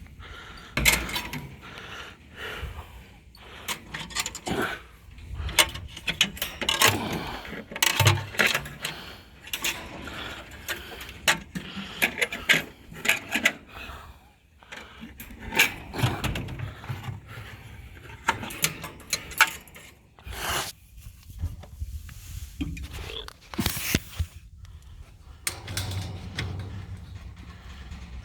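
Irregular rattling, knocking and scraping from hands-on handling work, with sharp clicks scattered throughout.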